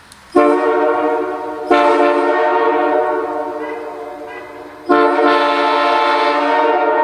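Nathan Airchime K3LA locomotive air horn sounding its chord in blasts. It starts just after the beginning, is blown again harder about a second and a half later and then fades slowly, and a third blast about five seconds in is held on.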